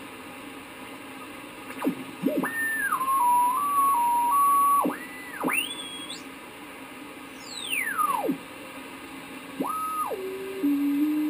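Hallicrafters S-108 tube shortwave receiver tuned across the 40-meter band: a steady hiss of band noise with single whistling beat notes that swoop up and down in pitch and hold briefly at steps as the dial moves across signals. One whistle rises very high and then falls back down.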